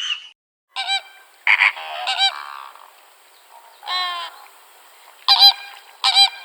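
Farm waterfowl honking: a series of about six short, harsh, pitched honks, one longer call in the middle and the loudest pair near the end.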